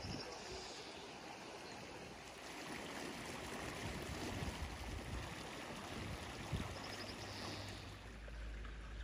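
Water running steadily into a pond, a continuous stream-like rush.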